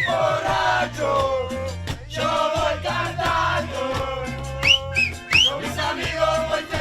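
Background music with a whistled melody over a steady bass beat, with a few short rising whistles a little past the middle.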